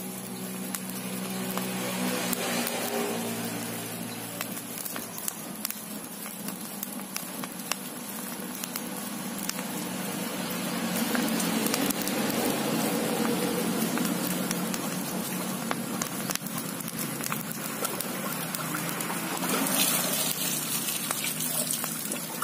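Charcoal-and-wood cooking fire crackling with many small pops while being fanned with a woven hand fan; the fanning comes through as whooshing swells of air, strongest a couple of seconds in and again about midway.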